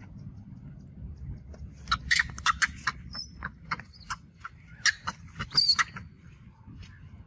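Young long-tailed macaque giving a rapid run of short, sharp squeals and shrieks, distress cries while another monkey grabs and pins it. The cries start about a second and a half in and stop about six seconds in.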